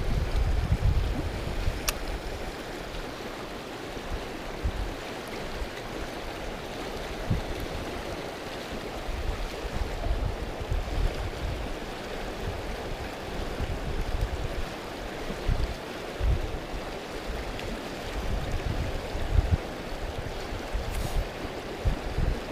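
River water rushing steadily, with gusts of wind buffeting the microphone and one sharp click about two seconds in.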